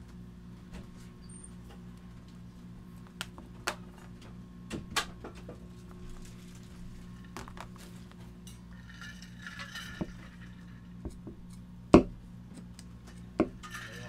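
Hands wrapping tape around the ends of Dyneema line and scissors cutting them: scattered light clicks and snips, a short rustle about nine seconds in, and one sharp click at about twelve seconds, over a steady low hum.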